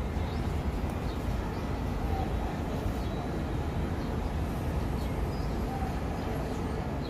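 Steady low outdoor background rumble of city noise, with faint short high chirps of small birds scattered through it.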